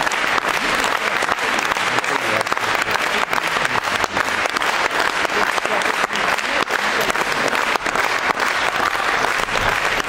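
Audience applauding: dense, steady clapping that carries on without a break.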